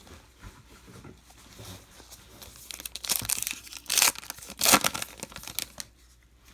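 A baseball card pack wrapper being torn open and crinkled, with a few sharp rips between about three and five seconds in.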